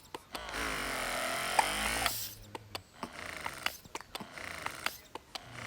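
A baby hiccuping: short, sharp hics at irregular intervals, several over a few seconds. A loud hiss runs for about a second and a half near the start.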